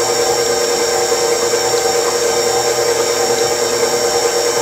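Electric stand mixer running steadily, its motor giving an even whine as the beater turns in a stainless steel bowl, combining the liquid ingredients for bread dough: warm water, honey, salt, olive oil and yeast.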